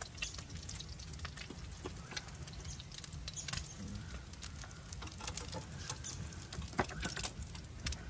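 Eggs frying in a steel pan on a portable gas camp stove: irregular crackling and spitting, with a metal spatula scraping and tapping the pan now and then.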